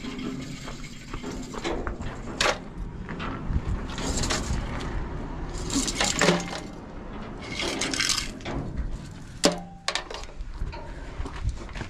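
Footsteps crunching on gravel and the scuffing of a small portable arc welder and its cables being carried and set down, in short crunches every second or two, with one sharp click about nine and a half seconds in. No welding arc is running.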